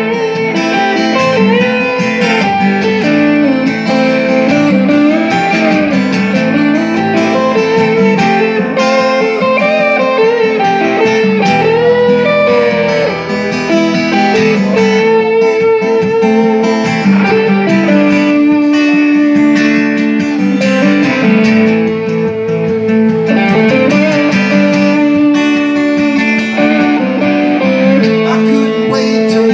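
Live instrumental break on electric and acoustic guitars: a bending lead melody over strummed chords, played loud and without pause.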